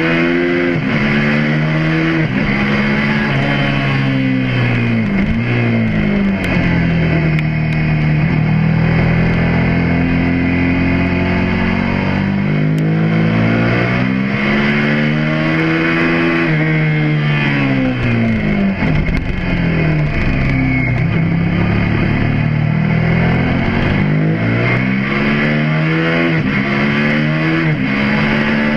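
Suzuki SV650S's V-twin engine heard onboard during a track lap, its revs climbing and falling several times as it accelerates, shifts and slows, over steady wind noise.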